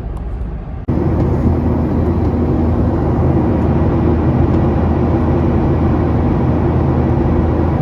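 An engine running steadily: a constant, even drone with a low hum, starting abruptly about a second in.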